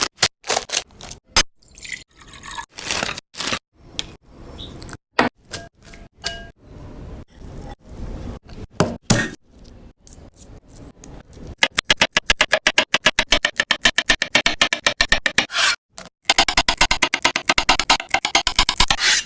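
A knife on a cutting board: scattered knocks and scrapes, then two long runs of rapid, even chopping at several strokes a second, as ingredients for Maggi noodles are cut up.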